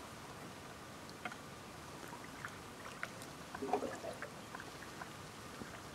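Faint water drips and trickles around a canoe on calm water over a steady hiss, scattered small ticks, and a short louder cluster of sounds a little past halfway.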